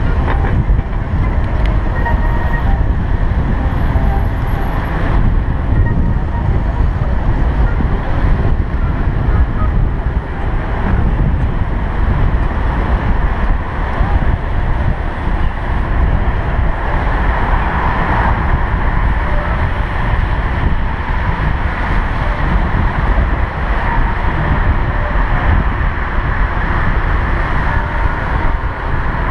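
Steady rumbling wind noise on a bicycle-mounted GoPro's microphone while cycling, mixed with tyre and city traffic noise.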